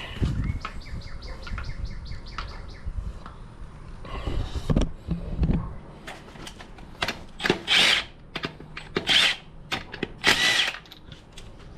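A handheld power tool runs in a few short bursts, spinning off the wheel's lug nuts, with quick clicks and metal clanks between the bursts.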